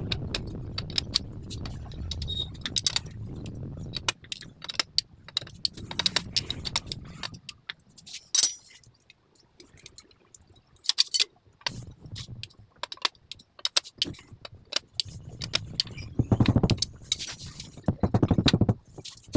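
Metal tools and motorcycle engine parts clinking and clattering as they are handled, with a low rumble in the first few seconds and a louder spell of rapid rattling near the end.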